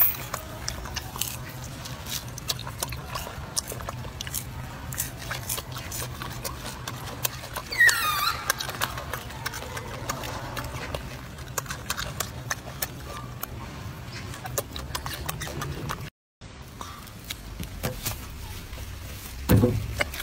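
Golden snub-nosed monkey chewing fruit, with many small wet clicks of chewing and smacking. About eight seconds in comes one loud squeal that falls in pitch, and near the end a short low sound that drops in pitch.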